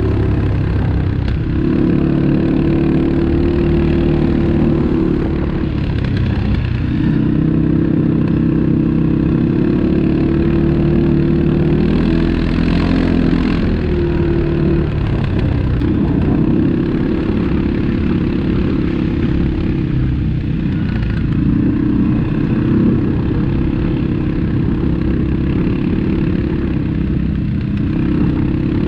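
ATV engine running, its note shifting up and down with the throttle now and then.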